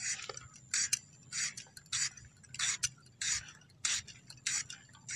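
Potato being peeled against the fixed curved blade of a boti: a steady run of short scraping strokes, about three every two seconds.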